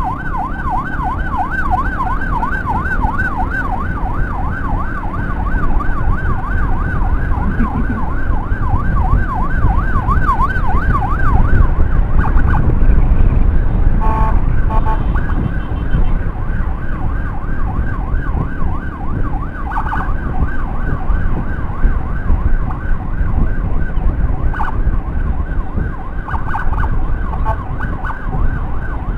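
Motorcycle-mounted 60-watt electronic siren on a fast yelp, sweeping rapidly up and down over heavy wind and engine rumble from the moving bike. The siren fades after about twelve seconds and comes back faintly near the end.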